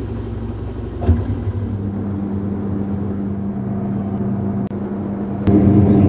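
Haier top-loading automatic washing machine in its final spin-and-drain stage, its motor humming steadily as the drum spins and water drains out. There is a single knock about a second in, and the hum grows louder near the end.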